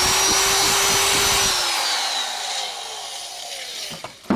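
A handheld power tool running at full speed with a steady whine. About a second and a half in it is let go and spins down with falling pitch, and a single knock comes near the end.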